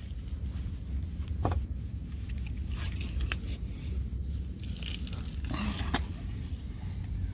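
Microfibre cloth rubbing and scrubbing along a car's running board by hand, with scattered scraping and a few sharp clicks over a steady low rumble.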